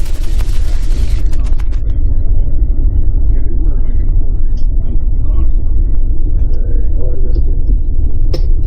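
Steady, loud low rumble with scattered faint clicks and ticks over it.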